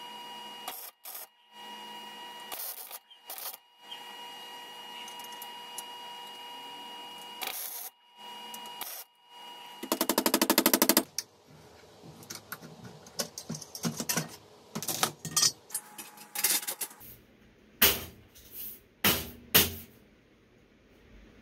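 Electric arc welding on a steel trike frame: a steady crackling hiss in several short runs. About ten seconds in comes a loud, very rapid rattle, then scattered knocks and clanks of metal parts being handled.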